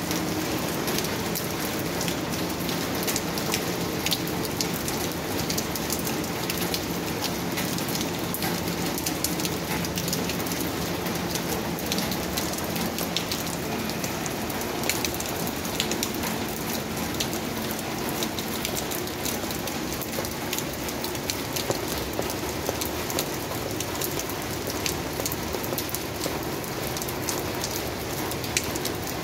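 Heavy rain falling on concrete pavement and asphalt: a steady hiss with many close, sharp drop impacts.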